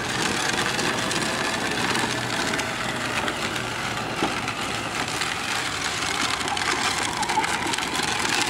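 Battery-powered children's ride-on quad bike driving over a dirt yard: the steady whir of its electric motor mixed with the noise of its plastic wheels rolling over dirt and gravel.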